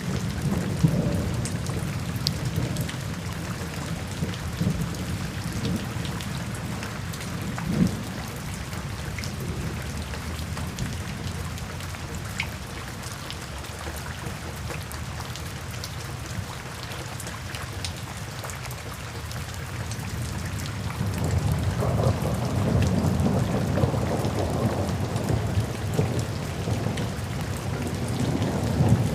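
Steady rain falling, with the fine patter of drops, and rolling thunder: a low rumble at the start fades, then a longer rumble swells up about two-thirds of the way through.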